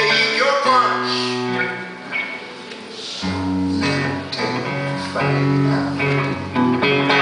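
Live band music led by an electric guitar playing an instrumental passage of a song. The sound dips briefly about two seconds in, then deep low notes come in.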